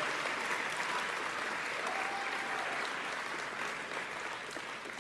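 Crowd applauding steadily, easing slightly toward the end.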